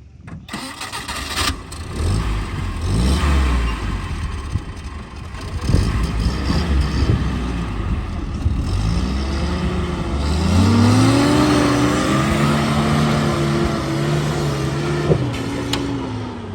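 Off-road jeep engine working under load, its revs climbing about ten seconds in and then held high, with a few sharp knocks.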